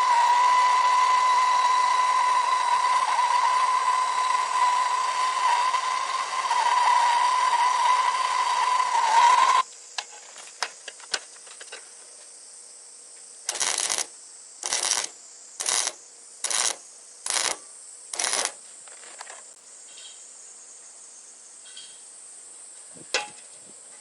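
Suzukid Arcury 100 100 V semi-automatic wire welder running a gasless stainless-steel wire arc: a loud steady hiss with a steady high whine for about nine and a half seconds, cutting off suddenly. About four seconds later come six short hissing bursts about a second apart, then a single click near the end.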